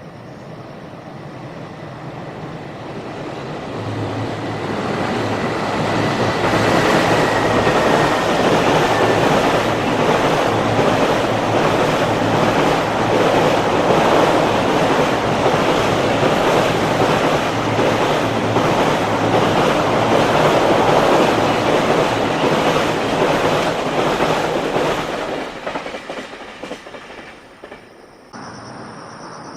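A JR Freight freight train passing close by, its wheels clattering over rail joints in a fast steady rhythm. The noise builds over the first several seconds, holds for most of the passage with a faint high wheel squeal about six seconds in, and falls away near the end.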